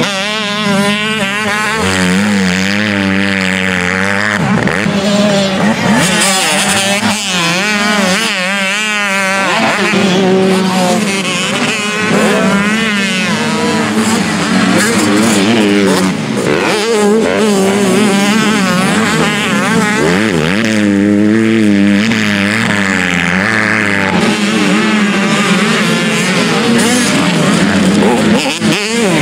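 Supermini motocross bike engines revving hard and rising and falling rapidly in pitch as riders work the throttle over jumps and hills, more than one bike at a time.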